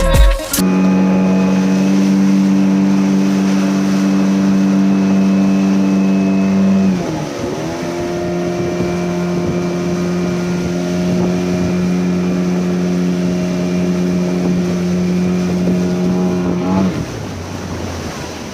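Motorboat engine running at a steady speed, easing off about seven seconds in and again near the end.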